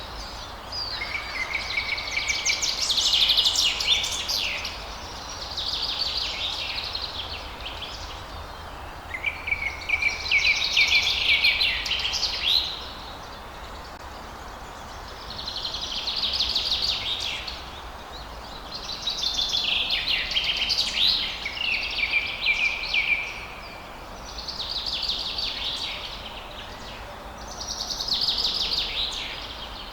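Songbird singing short, rapid trilled phrases, each one to three seconds long, one every three to four seconds, over a steady low background hiss.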